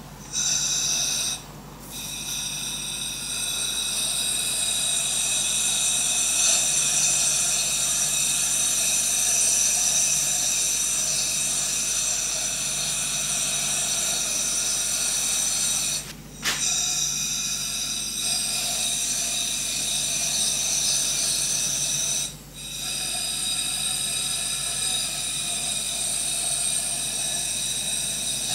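Powder coating gun blowing compressed air and powder in a steady hiss, which stops briefly three times.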